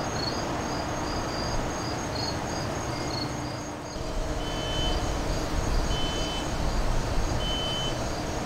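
Evening insects chirping in a quick, even, high-pitched pulse. About four seconds in the sound changes: a low rumble comes up, and a short high beep repeats about every second and a half.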